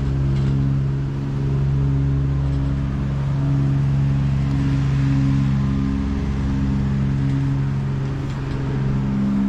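An engine running steadily, a low, even drone.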